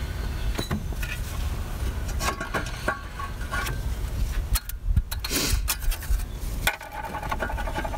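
Metal scraping, clinking and knocking as the rusted catted exhaust downpipe is worked loose by hand and pulled off the turbocharger outlet flange, over a low steady rumble.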